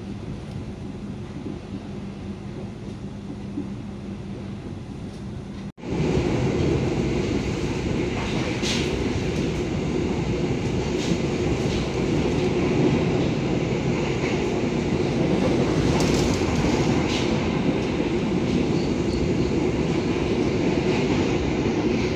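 Passenger train running on the rails: steady wheel-and-track noise with now and then a sharper click. About six seconds in, the sound cuts abruptly to a louder take of the same running noise.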